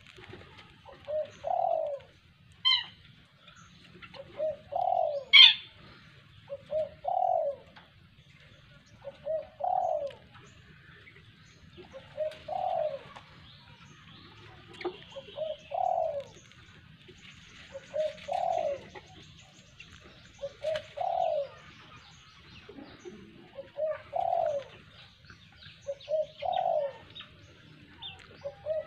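A dove cooing over and over, a short two-part coo repeating about every two and a half to three seconds. Two brief shrill cries cut in near the start, the second the loudest sound.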